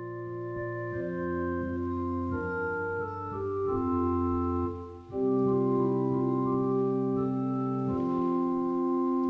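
Organ playing held chords as the introduction to the offertory hymn, before the singing comes in; the phrase breaks off briefly about five seconds in and then resumes.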